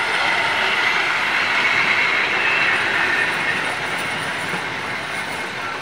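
Vintage passenger coaches of a steam special train rolling past close by, their wheels running on the rails. The noise grows a little quieter toward the end.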